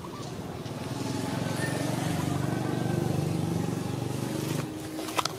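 A motor vehicle's engine running, growing louder for about two seconds and then dropping away near the end. A single sharp click follows just before the end.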